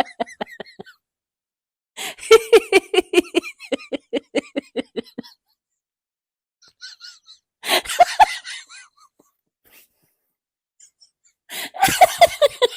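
A woman laughing in separate bouts of quick, rhythmic 'ha-ha' pulses that fall in pitch within each bout. One bout trails off just after the start, another runs from about two to five seconds in, a shorter one comes near the middle, and a last one starts near the end, with silent pauses between them.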